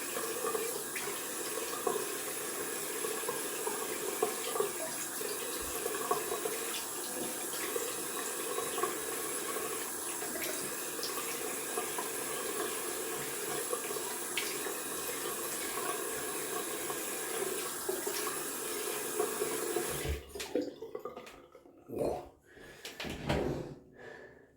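Bathroom tap running into the sink, with splashing as the face is rinsed after a shave. The water stops abruptly about twenty seconds in, and a few short sounds follow.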